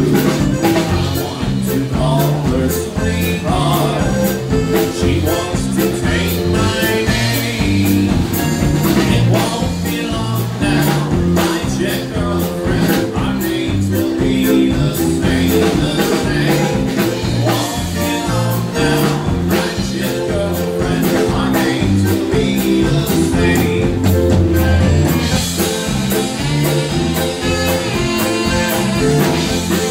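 Live Czech polka band playing an instrumental passage: saxophones carrying the tune over accordion, electric bass and drum kit, with a steady oom-pah beat.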